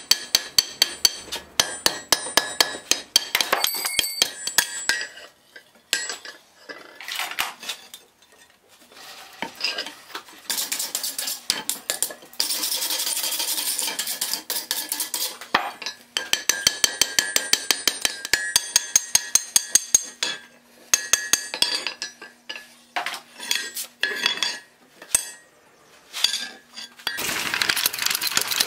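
Hand hammer striking a red-hot iron bar on an anvil, dressing a joint and squaring it, in quick runs of several ringing blows a second with short pauses between runs. A steady rushing noise fills a few seconds in the middle.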